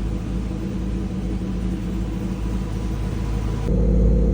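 Firebird's LS-based V8 idling steadily with the freshly recharged air conditioning running. A little before the end the sound turns suddenly louder and fuller.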